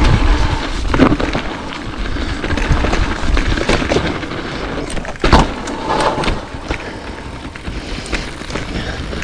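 Mountain bike rolling down a dirt trail: wind rumble on the camera microphone, with tyre noise and the bike rattling over the ground. Sharp knocks about one second in and about five seconds in.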